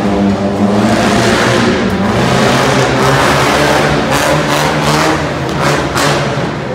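Mini monster truck's engine running hard as it drives, with several sharp throttle surges in the second half.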